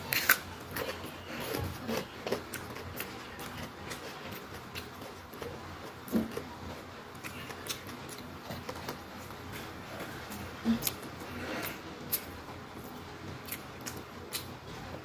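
Close-up eating sounds of rice eaten by hand: chewing, with irregular wet smacks and clicks of the mouth.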